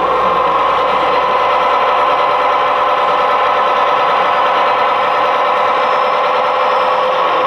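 Model railway locomotive running: a steady engine-like hum with a held tone, unchanging throughout.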